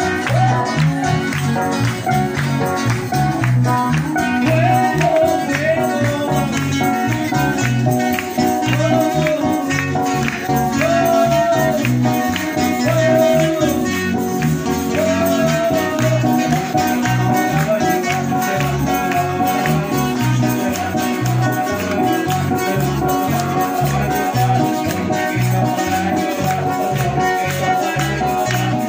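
Live band playing upbeat praise music: electric guitar and a lead melody over a steady, regular bass beat.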